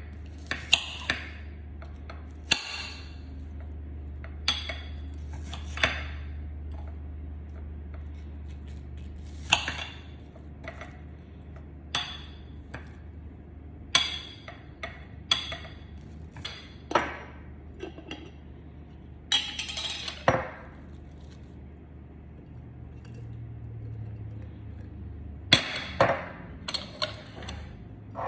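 Glassware and kitchen utensils clinking and knocking together: some twenty sharp, ringing clinks at irregular intervals, over a low steady hum.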